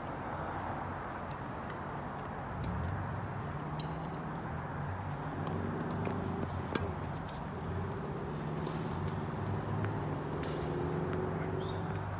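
An engine running, coming in about two and a half seconds in as a steady low hum whose pitch rises slightly. A few sharp clicks and a short hiss near the end sound over it.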